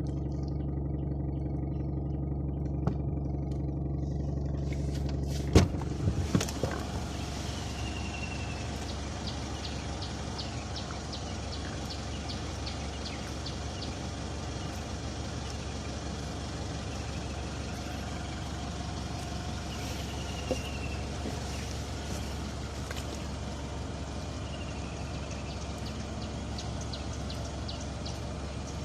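Mitsubishi Triton pickup driving slowly, heard from inside the cab as a steady low engine and road drone. A few sharp clicks come about five and a half seconds in, after which a wider hiss with faint regular ticking sets in. A few short bird chirps are heard over it.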